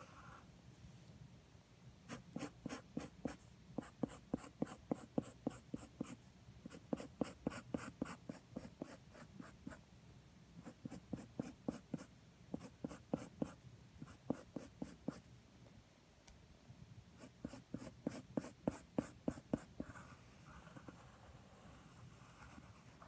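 Graphite pencil scratching on paper in quick back-and-forth sketching strokes, about five a second. The strokes come in runs of one to three seconds with short pauses between.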